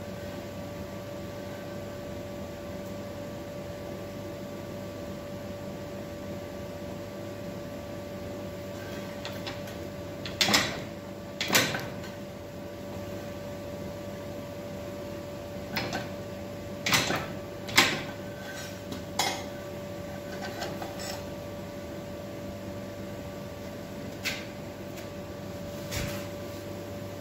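Fly press with a dimpling punch striking a hot railway spike: a string of sharp metallic clanks, mostly in two quick groups around the middle and a couple more near the end, over a steady background hum.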